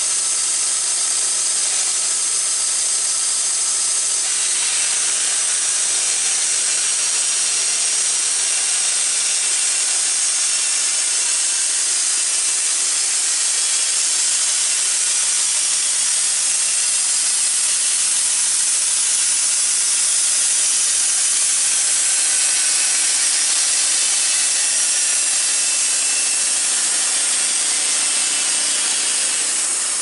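Wood-Mizer LT15 band sawmill sawing a maple log lengthwise: the mill runs steadily under load while the band blade hisses through the wood. The sound grows brighter about four seconds in.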